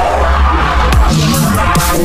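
Dubstep-style electronic beat played live on an Elektron Digitakt drum machine. A deep bass note holds for about the first second, then a kick drum with a falling pitch lands and a short run of low pitched notes follows, with noisy hi-hat-like hits over the top.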